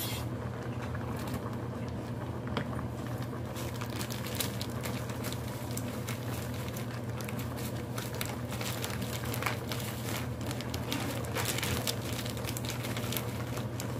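Crab soup boiling in a stainless steel pot, a constant patter of small bubbles popping and crackling over a steady low hum.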